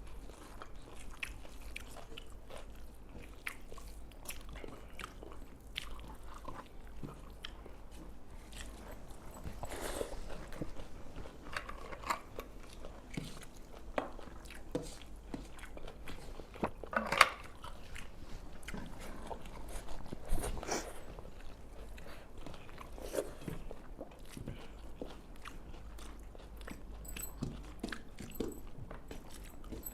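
People eating rice and spicy pepper chicken: close chewing and crunching with scattered short clicks and taps, the sharpest one about seventeen seconds in.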